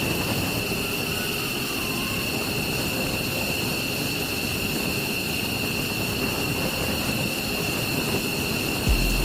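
Jet aircraft engine running steadily, a broad rushing noise with a high whine held on one pitch. A low rumble comes in near the end.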